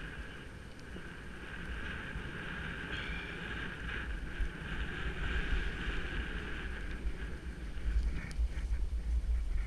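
Skis hissing steadily through deep powder snow, with wind buffeting the microphone as a low rumble that grows stronger near the end.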